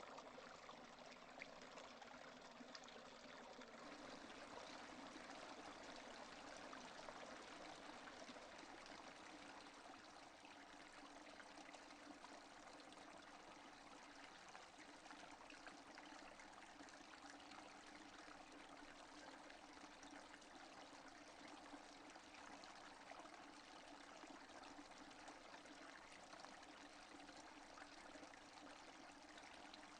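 Steady rain falling without thunder: a quiet, even hiss flecked with fine patter of drops.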